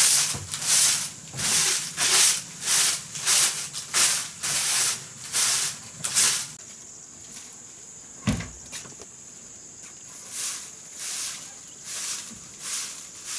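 Rhythmic swishing strokes, about one and a half to two a second, stop about six seconds in. A single low thump follows, and fainter strokes resume at the same pace near the end. A steady high tone runs under the second half.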